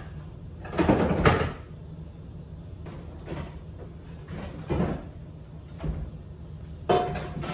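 Lower kitchen cabinet being rummaged through: knocks and clatter from the cabinet door and things inside it, loudest about a second in and again near the end, with a few smaller knocks in between.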